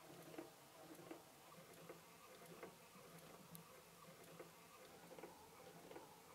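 Faint clockwork mechanism of an automaton running: soft ticks about every three-quarters of a second over a low steady hum.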